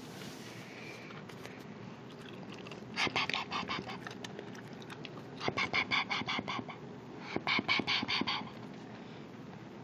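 A puppy growling in three short, rattling bouts while it eats from its food bowl, a warning growl over its food.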